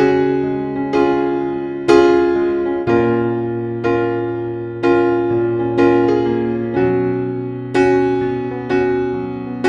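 Background music: gentle piano or electric piano playing slow chords, one struck about every second, each ringing out and fading before the next.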